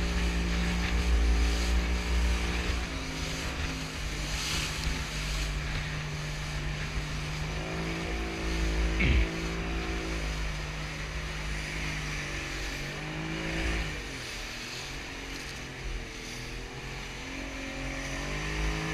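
Outboard motor pushing an open fishing boat through surf, its engine speed dropping and rising several times as the throttle is eased and opened. Water spray and wind rumble run beneath it.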